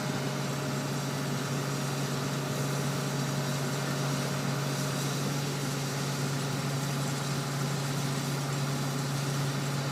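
Heavy diesel engine of a mobile crane running at a steady speed, a constant low hum with no change in pitch.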